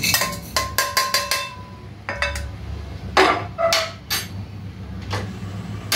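Metal spoon clinking and scraping against a metal kadai of dry-roasted whole spices: a run of sharp irregular clinks, some ringing briefly.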